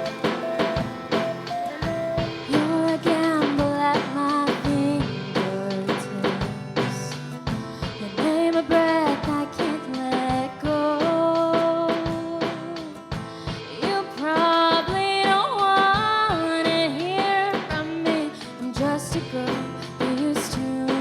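Pop-rock song played on drum kit and guitar with a steady beat, over which a lead melody slides and bends in pitch.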